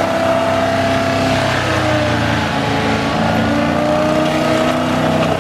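Diesel forestry mulcher running at about three-quarter throttle with its mulching head spinning, a steady loud drone whose pitch drifts slightly up and down.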